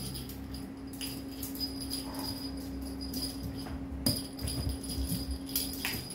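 Kittens pouncing on a fabric sofa after a wand toy: a few soft thumps from their landings and light clicks and jingles from the toy, over a steady low hum.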